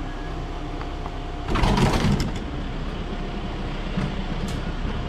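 Motorised sectional garage door lifting after its wall button is pressed, over a steady car engine hum, with a louder rush of noise about one and a half seconds in.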